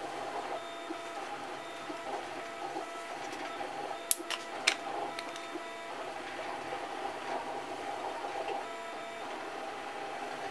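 3D printer's stepper motors whirring steadily in a wavering, tonal hum. Two sharp clicks about four seconds in come from hard plastic lens parts being handled.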